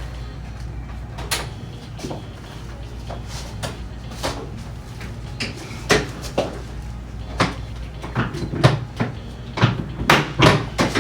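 An irregular series of short knocks and clicks, coming closer together toward the end, over a steady low hum.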